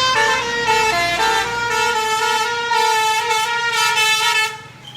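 Indonesian bus 'telolet' musical air horn playing a short tune of stepped notes, then holding one chord for about three seconds before cutting off near the end.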